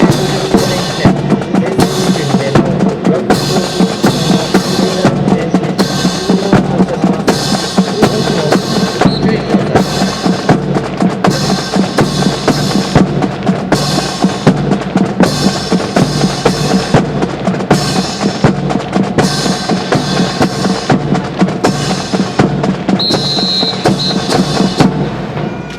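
Marching drums, snare and bass drum, playing a fast steady cadence for a drill, dying away at the very end.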